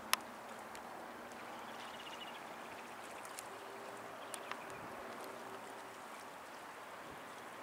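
Faint outdoor ambience: a steady soft hiss, with a sharp click just after the start and a few smaller ticks around the middle. A faint steady hum comes in for a couple of seconds midway.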